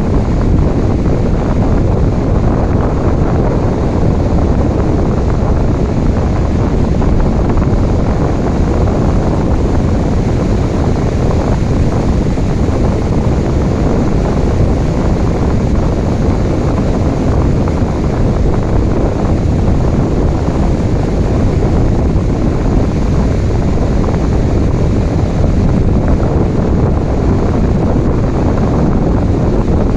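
Ocean waves and rain blended into a loud, deep, steady rush of water noise, with no separate breaking waves standing out.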